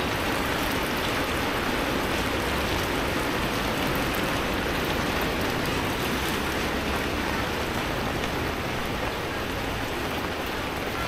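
Steady rain falling and pattering, heard from under an umbrella: an even, unbroken hiss.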